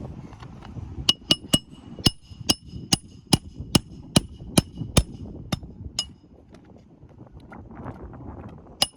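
Hammer driving roofing nails into shingles: a quick run of sharp, ringing metal strikes, about two or three a second, then a pause and more strikes near the end.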